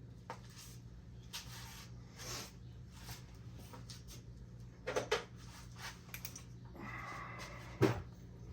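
Small clicks, taps and rustles of tools and parts being handled on a workbench, with a couple of sharper ticks about five seconds in and near the end, over a steady low hum.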